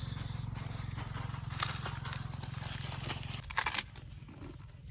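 Dry brush and leaves crackling and rustling as someone pushes through undergrowth, over a low steady hum that drops away about three and a half seconds in.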